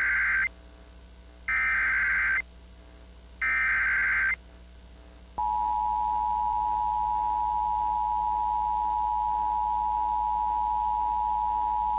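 Emergency Alert System SAME header: the end of one burst of buzzing digital data tones, then two more, each about a second long with a second's gap, encoding a new alert. About five seconds in, the steady two-tone EAS attention signal starts and holds, announcing the warning message that follows.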